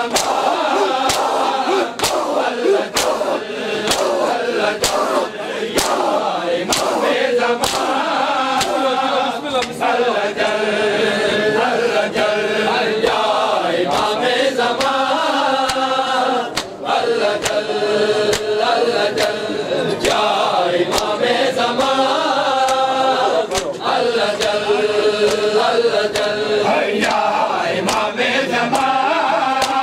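Men chanting a mourning lament (noha) together, with the slaps of bare-handed chest beating (matam) from the crowd of shirtless mourners keeping a steady beat of about one a second.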